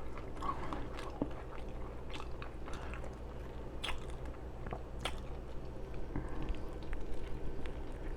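Close-miked chewing with wet, open-mouthed smacking as a burger and fries are eaten: irregular sharp mouth clicks, the two loudest about four and five seconds in.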